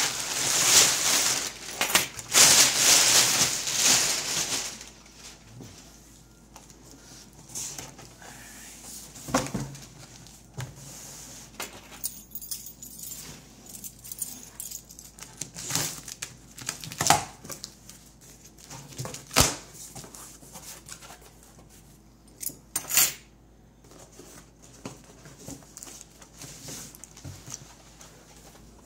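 A cardboard box and its packaging being handled and opened: a few seconds of loud scraping and rustling of cardboard, then scattered knocks and light clinks.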